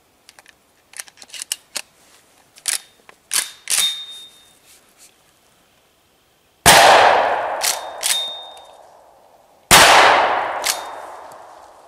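Pump-action shotgun with a duckbill choke being loaded and readied, a run of small metallic clicks and clacks, one with a brief ring. Then two loud shots of 00 buckshot about three seconds apart, each echoing away, with the slide racked in two sharp clacks between them.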